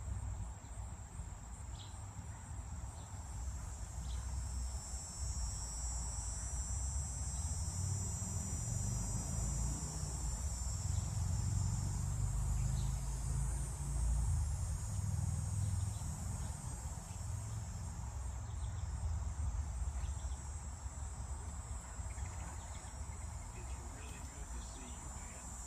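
Insects chirring in a steady, high, even drone, over a low rumble that swells in the middle.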